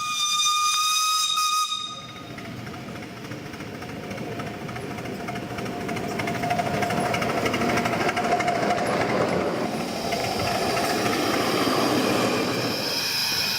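A miniature steam locomotive's whistle sounds once for nearly two seconds, then the locomotive's steam hissing and working, growing louder. A high whistle-like tone comes in again near the end.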